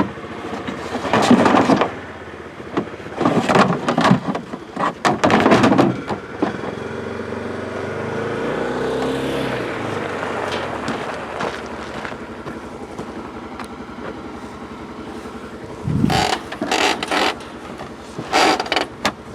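A vehicle running on the move, with irregular bouts of rattling and scraping in the first few seconds and again near the end, and a steadier stretch of engine sound in between whose pitch rises and falls.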